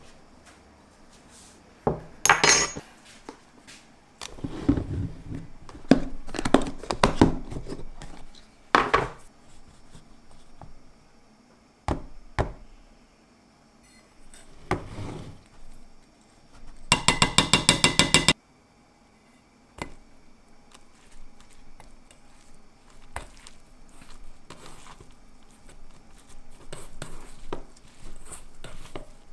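Spoons clinking and knocking against a stainless steel mixing bowl as seasoning and starch are added to ground meat, with a fast run of about ten taps about two-thirds of the way through. Near the end, softer, fainter sounds of the meat being mixed by hand.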